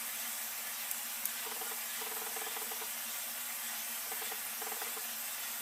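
Steady hiss with two faint, sharp clicks about a second in, as the plastic halves of a mobile phone's housing are pressed and snapped together.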